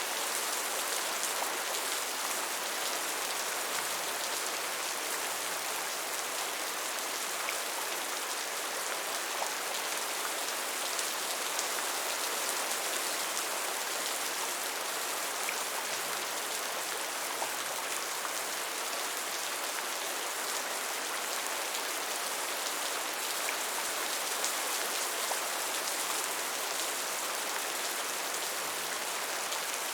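Steady rain falling, an even hiss of many drops with small individual drop ticks scattered through it.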